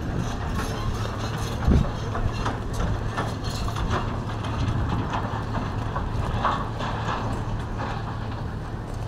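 Outdoor ambience at a harbour dredging site: a steady low machinery hum under a rumbling noise, with one louder thump about two seconds in.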